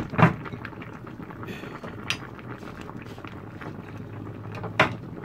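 Pot of soup simmering with a steady bubbling hiss, broken by a few sharp metal clinks against the stainless steel pot: two at the start, one about two seconds in and one near the end.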